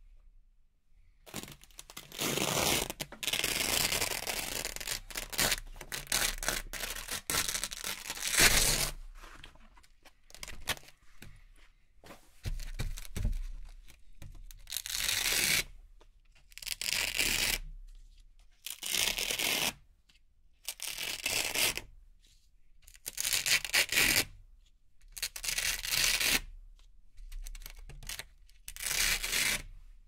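Velcro strips being ripped apart with a crisp, crackly tearing sound: a long run of ripping for the first eight seconds or so, then short separate rips about every two seconds in the second half.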